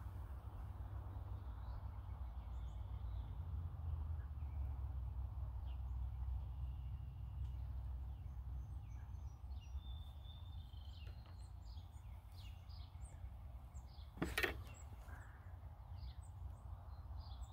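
Outdoor ambience: a steady low rumble with faint, scattered bird chirps, and a single sharp knock about fourteen seconds in.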